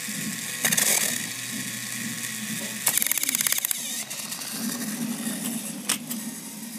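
Motorized toy train engine's motor and gears whirring steadily, with a fast clattering rattle for about a second, three seconds in, and a couple of sharp clicks near the end as the toys are handled.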